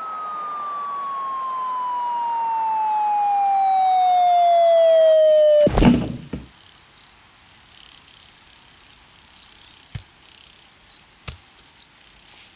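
A descending whistle, the cartoon falling-object sound effect, slides steadily down in pitch and grows louder for about six seconds, then ends in a heavy crashing thud. Two short faint clicks follow later.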